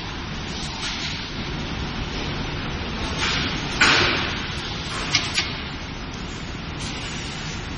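Automatic 50 kg sugar bag packing line running: a steady machinery noise, with a sudden hiss about four seconds in that fades over half a second, then two short sharp clicks a moment later.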